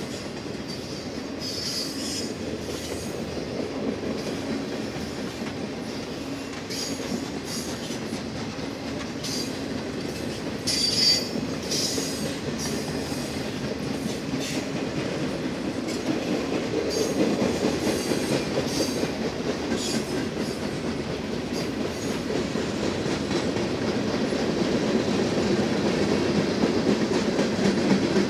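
Norfolk Southern freight train's loaded flatcars rolling past on the rails: a steady rumble of steel wheels on track. Short high wheel squeals come a few times, the strongest about eleven seconds in, and the rumble grows louder toward the end.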